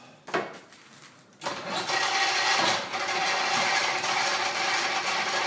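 A click, then about a second and a half in the antique Rockford lathe starts up and runs steadily, its motor humming and the spindle turning with the newly adjusted spindle clutch engaged and working.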